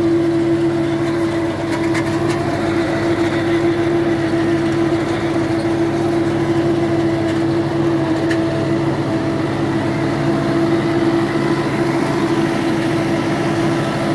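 HMT 5911 tractor's diesel engine running steadily under load while it pulls a Landforce 7-foot super seeder working paddy stubble, with one strong constant tone over the engine noise.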